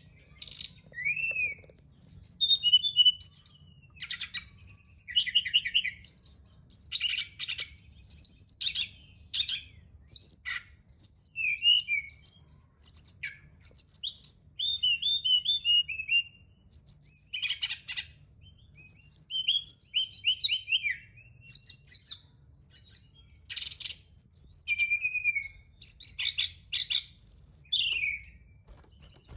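Brown-chested jungle flycatcher (SRDC) singing: short, high, varied chirping and trilling phrases, one after another about once a second with brief gaps.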